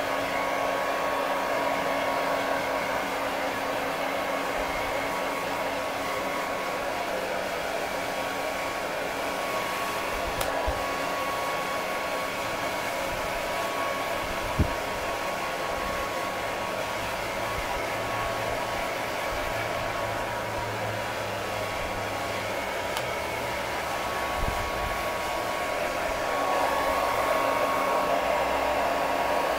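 Handheld hair dryer running steadily, a continuous rush of air with a steady motor whine, blowing damp hair dry. A single brief knock sounds about halfway, and the dryer gets slightly louder near the end.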